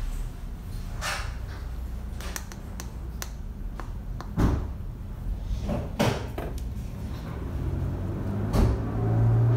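Wooden stir stick knocking and scraping in a small plastic cup as pigment is stirred into epoxy resin, giving four or five separate sharp taps. A low rumble builds near the end.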